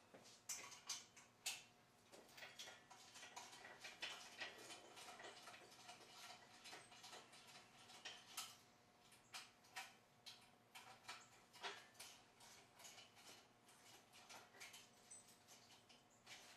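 Faint, irregular metallic clicks and clinks of hand tools, hardware and hoist chain as an engine hanging on a chain is bolted onto an engine stand.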